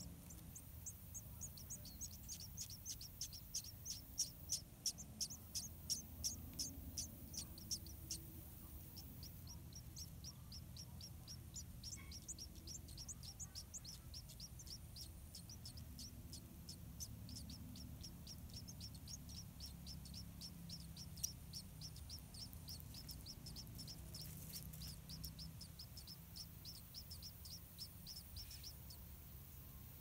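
White-rumped munia nestlings begging for food with a fast, even run of thin, high chirps, about four a second, loudest in the first few seconds.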